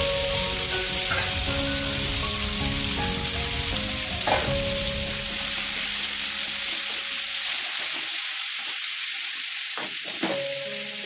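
Potato sticks sizzling as they deep-fry in hot oil in a wok, with a steady hiss. A metal slotted spatula stirs them, scraping and knocking against the pan about four seconds in and twice near the end.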